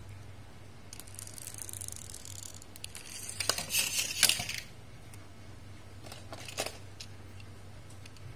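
Rustling, scraping and sharp clicks as small die-cast toy cars are handled, loudest for about a second and a half near the middle, with a few more clicks later and a steady low hum underneath.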